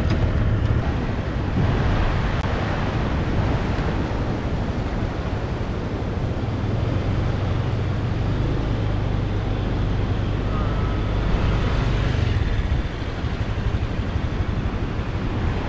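Honda Click scooter's engine running with a steady low hum, under a constant rushing of wind on the microphone; the hum eases about three-quarters of the way through.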